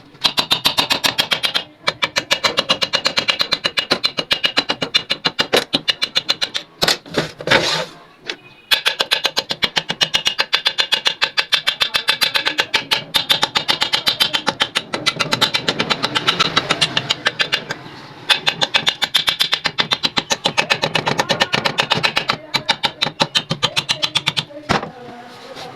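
Antique sewing machine running, its needle and stitching mechanism making a fast, even clatter that stops briefly several times and starts again.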